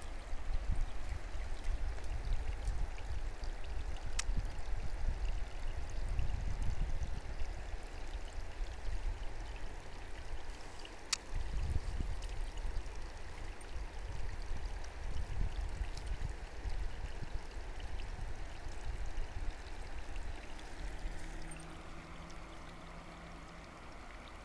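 Shallow stream running over stones, a steady wash of water noise with a low rumble under it. Two sharp clicks cut through, about four seconds and about eleven seconds in.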